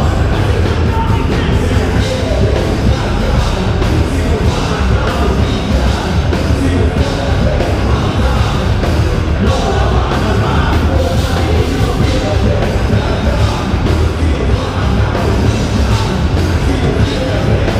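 Live heavy rock band playing loudly, drums hitting in a steady beat under a dense wall of amplified instruments.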